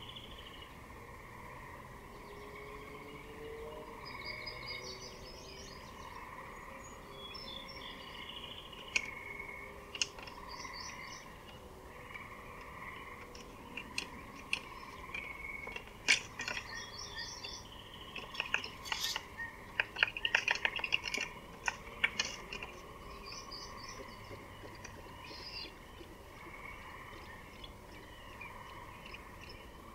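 Songbirds singing in short chirping phrases over a steady, gently pulsing background drone. In the middle stretch a run of sharp clicks and snaps comes in, thickest for a few seconds near the two-thirds mark.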